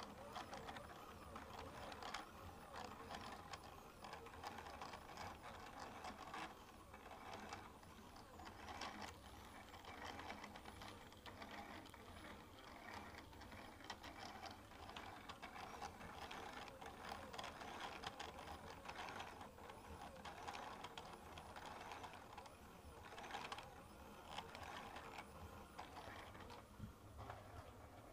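Stepper motors of the Cyclone PCB Factory, a small 3D-printed CNC milling machine, driving a pen across paper to draw a gear outline. They make a faint, continuous mechanical whirring, a quick run of short whines changing pitch, with small ticks as each move starts and stops.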